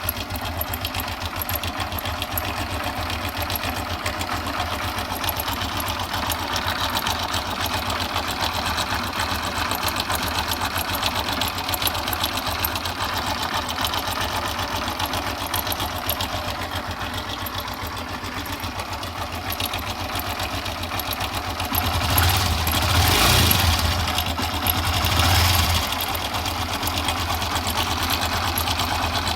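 Honda CB125 motorcycle engine running at idle with a fast, steady metallic rattle from the timing chain, which is slack because the rubber on its tensioner is worn out. The engine is revved up twice near the end.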